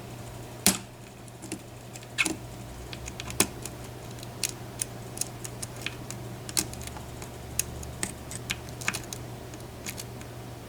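Small, irregular metallic clicks and taps of a pick and tension wrench working the pins of a pin tumbler challenge lock, with a few louder clicks in the first few seconds. A steady low hum runs underneath.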